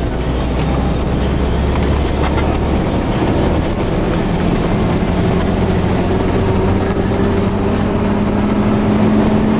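Engine and road noise of a moving van, heard from inside its cabin. There is a heavy low rumble for the first few seconds, then an engine note that rises slowly in pitch as the van picks up speed.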